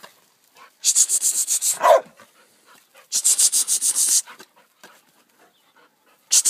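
A hog-hunting dog panting hard in three rapid bursts of quick, breathy puffs. The first burst ends in a brief whine.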